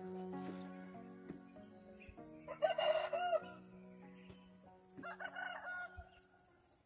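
Rooster crowing twice: a loud crow lasting about a second near the middle, then a softer one about two seconds later.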